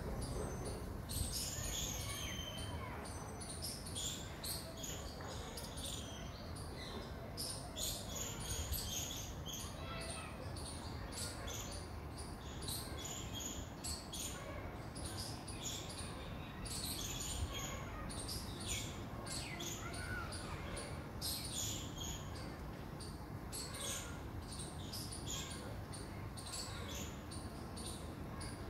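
Many short, high chirping calls, repeating irregularly throughout, over a low steady rumble.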